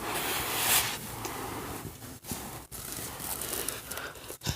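Rustling and scraping of blankets and clothing as someone crawls out of a blanket fort, an irregular noisy shuffling with a few brief gaps.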